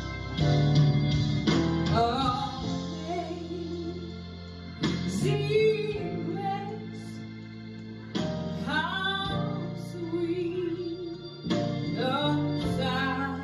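A woman singing a slow song into a microphone, holding and bending notes with vibrato, over steady instrumental accompaniment.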